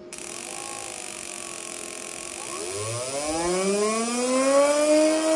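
Steady hiss with a buzzing whine from the programmable CDI test setup. The whine's pitch rises smoothly from about two and a half seconds in and peaks near the end as the revs are swept up toward the limiter.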